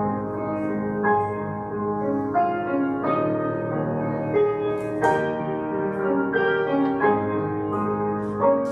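Piano playing a slow, gentle piece in sustained chords, with new chords struck every second or so.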